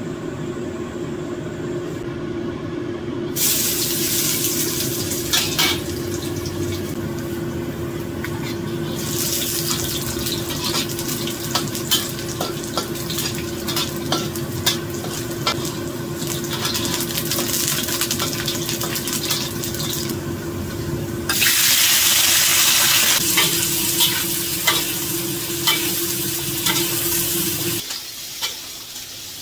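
Kitchen cooking sounds: a steady hiss with frequent sharp clinks of a utensil against a pan or dishes, over a steady low hum. The hiss starts, swells and drops out abruptly a few times.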